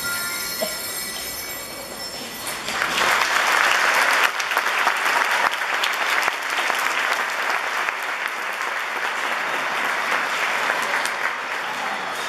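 Metallic bell-like ringing dies away, and about two and a half seconds in an audience breaks into loud, steady applause that carries on.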